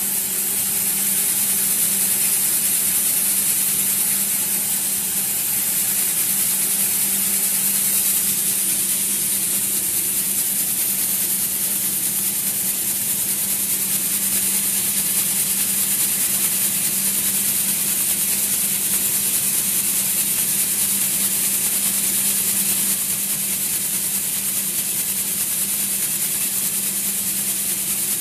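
BEIBU 5XZ-8 gravity separator running with shelled corn on its deck: a steady hiss with a low hum underneath.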